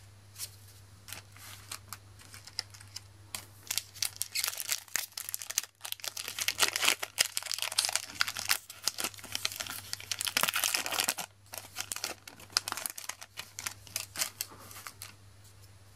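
The foil wrapper of a Magic: The Gathering booster pack being torn open and crinkled in the hands: a dense crackling from about four seconds in to about eleven, with scattered light clicks of cards being handled before and after.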